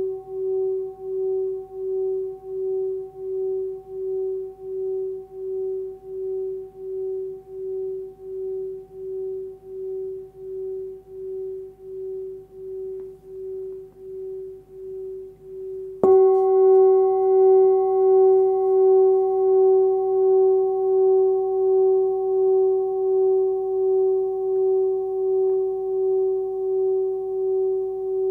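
Hand-forged Sun Moon singing bowl ringing with a pure tone at about 380 Hz (F#), pulsing about once a second and slowly fading. About 16 seconds in it is struck again and rings out louder, with higher overtones above the main note, still pulsing.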